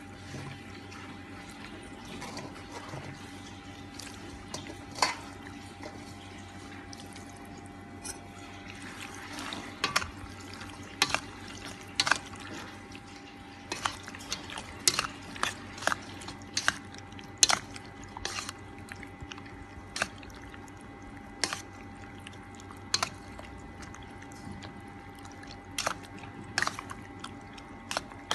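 Raw pork pieces being worked in a liquid marinade in a metal bowl: irregular wet squelches and splashes. They are sparse at first and come much more often from about ten seconds in.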